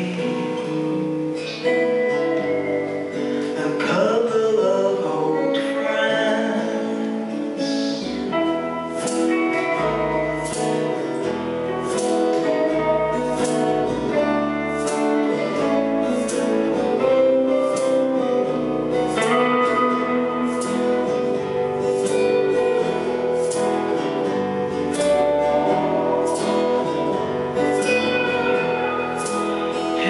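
Live acoustic guitar strumming chords with singing over it. A light, regular tick joins the music about a third of the way through, keeping a steady beat of roughly one a second.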